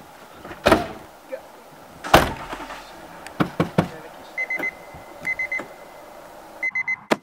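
Two car doors of a VW Polo shutting with solid thumps, a few light clicks, then from about four and a half seconds a high electronic beeping in quick groups of three that repeats, like a digital alarm clock.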